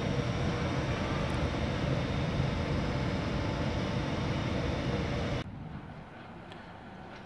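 Steady running noise, with faint high tones, of an ÖBB Class 1116 Taurus electric locomotive standing at the platform with its cooling blowers and converters running. A little over five seconds in it cuts off abruptly to a much quieter open station background.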